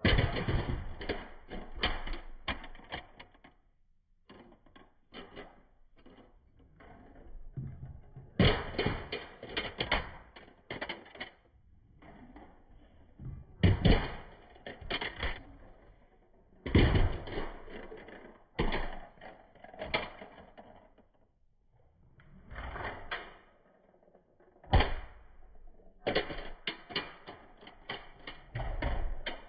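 Toy cars rolling down a board ramp and clattering as they land and tumble, run after run: about seven bursts of rapid rattling clicks a few seconds apart.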